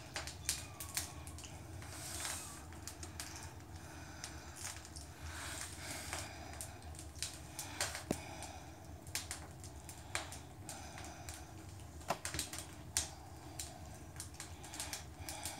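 Chinchilla Persian cat and her kittens eating chopped raw chicken and giblets from a metal plate: irregular wet chewing and smacking clicks, several a second.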